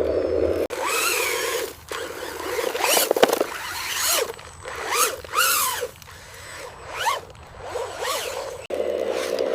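Small electric motors of a remote-control construction model whirring in short bursts, rising and falling in pitch as they are throttled up and down, with creaks from the mechanism.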